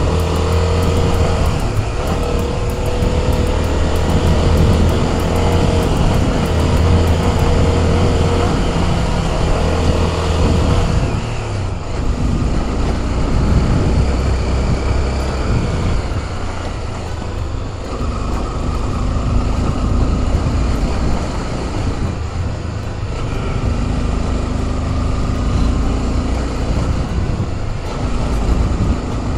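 Motorcycle engine running while riding, with wind and road noise. The engine note shifts about twelve seconds in.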